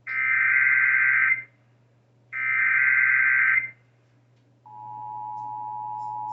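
Emergency Alert System SAME header: two warbling data bursts about a second and a half long, a second apart, then about four and a half seconds in the steady two-tone EAS attention signal starts and holds. It marks the start of an emergency alert, here a tornado warning.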